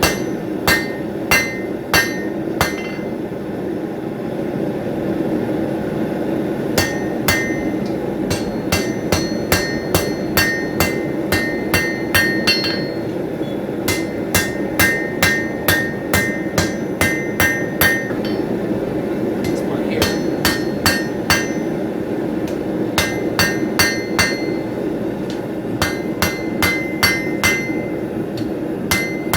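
Hand hammer forging hot steel on an anvil, in runs of blows about two a second with short pauses between them; each strike has a bright ring. A steady low rushing noise runs underneath.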